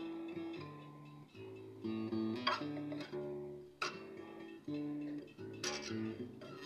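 Acoustic guitar played fingerstyle: a slow bass line of low plucked notes under higher notes, with three sharp accents along the way.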